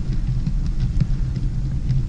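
Model railway locomotive running along the track: a steady low rumble and hum, with faint light clicks over it.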